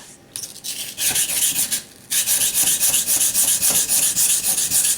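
Knife blade scraping back and forth on a wet Naniwa Chosera waterstone. It starts with a few strokes, pauses briefly, then settles into quick, even strokes of about five a second. The blade's edge is being ground down to remove chipping.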